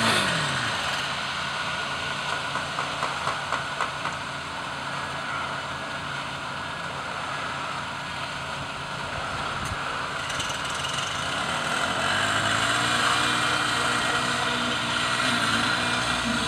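Diesel engine of a concrete mixer truck running under a steady outdoor hiss; about twelve seconds in its note rises and then holds. A few light knocks come between about two and four seconds in.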